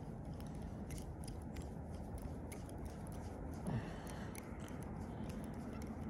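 Faint small clicks and rubbing of hands working a fishing hook out of a small creek chub, over a faint steady background. A brief low sound comes a little past halfway.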